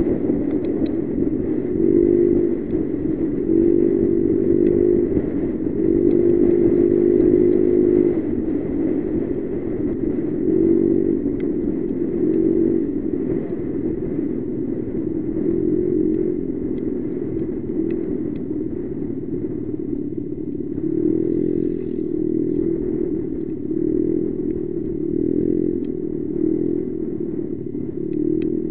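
Motorcycle engine running steadily while riding at road speed, heard from a camera mounted on the bike; its hum swells and eases every second or two, with faint scattered ticks.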